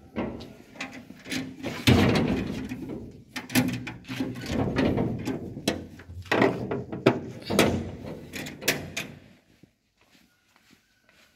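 Handling noise: a run of knocks, clatters and scrapes that stops about nine seconds in.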